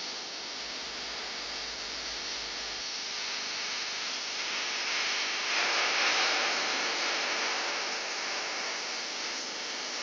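Steady rush of flowing spring water, growing louder a little past the middle and easing off again.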